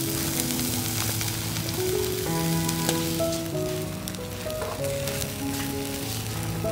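Whole fish sizzling on a wire grill basket over a charcoal fire, a steady hiss with scattered small crackles, under background music of slow held notes.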